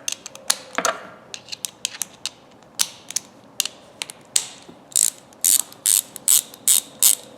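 Freshly rebuilt Thorsen 77J 3/8-inch ratchet being worked back and forth with a socket on, its pawl clicking. The clicks come in irregular single strokes at first, then in quicker runs in the second half.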